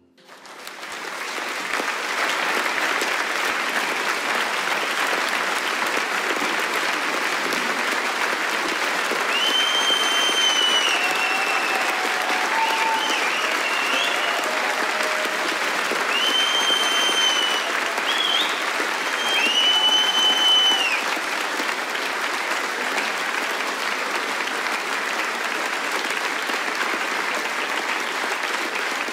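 A concert audience applauding steadily. It swells up within the first second or two and holds. Three long, high whistles ring out from the crowd in the middle stretch.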